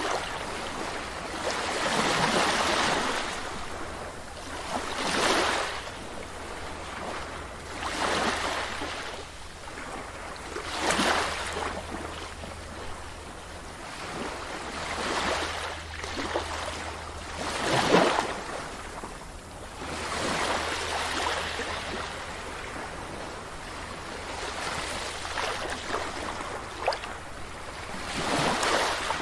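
Sea waves breaking and washing on a beach, one surge about every three seconds, each swelling and falling away.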